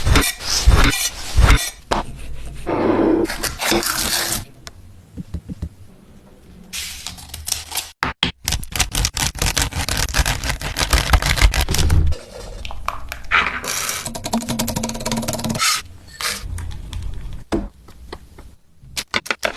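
Kitchen food-preparation sounds: utensils scraping and clinking against dishes and pans, with a long stretch of rapid clicking in the middle.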